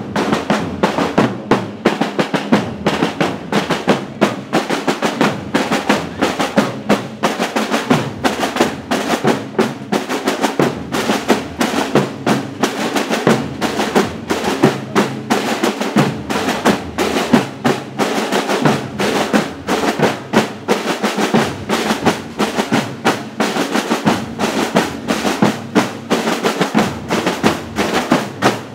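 A marching band drumline of many snare drums and larger bass drums playing a marching cadence together, with rolls and a steady repeating beat.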